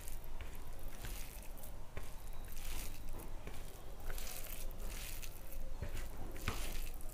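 Fingers mixing cooked rice with leafy greens (saak) on a steel plate, giving soft squishing sounds in irregular short bursts, about one a second.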